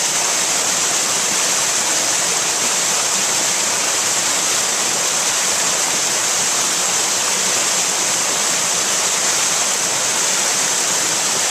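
Waterfall close by, a steady loud rush of falling water with no change throughout.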